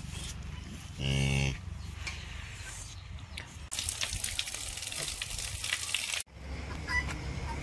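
A cow moos once, briefly, about a second in. Later a steady hiss runs for a couple of seconds and cuts off abruptly.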